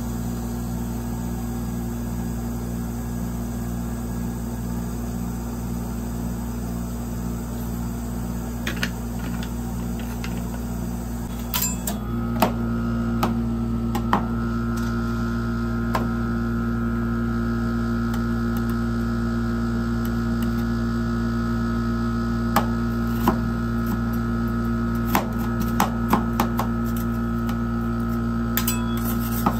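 Steady electrical hum of the rolled-ice-cream machine's refrigerated cold plate. About twelve seconds in it gets louder and adds a higher whine. From then on come scattered sharp clicks and taps as metal spatulas chop KitKat bars into the freezing cream base on the steel plate.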